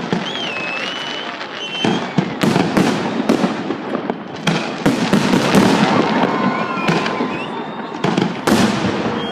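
Fireworks salute: a rapid run of sharp bangs from bursting shells, coming in clusters from about two seconds in, with continuous crackling between them.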